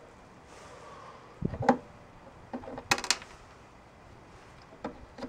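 A few scattered small metallic clicks and clinks: tools and metal parts being handled, with the drill stopped. The sharpest cluster comes about three seconds in, and a couple more come near the end.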